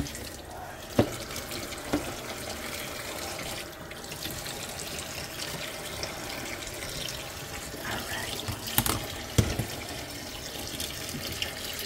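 Cool tap water running steadily into a stainless steel kitchen sink holding skinned catfish, with a few short knocks about a second in, two seconds in, and twice near the end.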